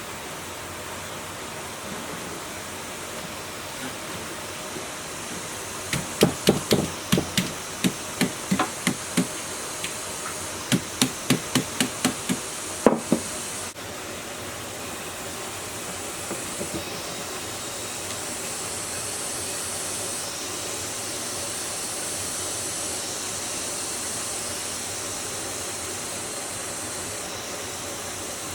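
Two quick runs of sharp knocks, about three a second, some six seconds in and again near the middle, over a steady hiss.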